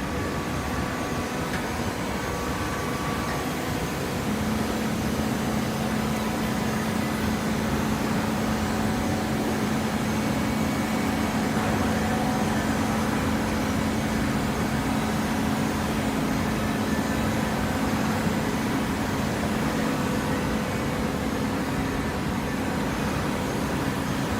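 TCM-HPA hydraulic fiber baler running: a steady industrial machine noise, joined about four seconds in by a steady electric hum, typical of the hydraulic pump motor.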